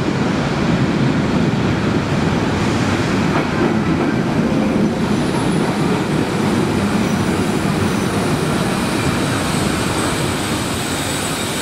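ČSD class 475.1 steam locomotive and its coaches rolling slowly along the platform, wheels and running gear rumbling on the rails. A thin high wheel squeal creeps in about halfway and the rumble eases slightly near the end as the train slows.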